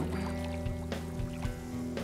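Background music with steady held notes, with one short, sharp splash right at the start as a hooked smallmouth bass breaks the surface beside the canoe.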